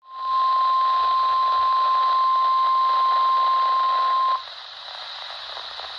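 NOAA Weather Radio's 1050 Hz warning alarm tone, one loud steady beep over the receiver's static hiss. It cuts off about four seconds in, leaving only the hiss of a distant, weak station.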